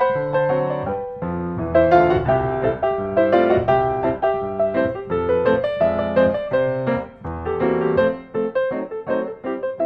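Background music: a solo piano playing a bouncy, steady-beat ragtime tune.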